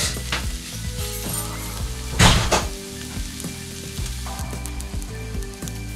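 Sliced onions, peppers and baby corn sizzling as they fry in a non-stick pan, with a brief louder rush of sizzle about two seconds in.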